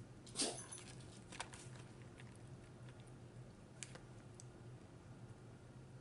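Close-up chewing of salad with croutons: a few scattered crunches and clicks, the loudest about half a second in.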